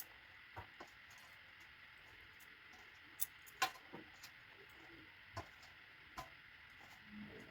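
Quiet room tone with a few short, faint clicks and taps scattered through it.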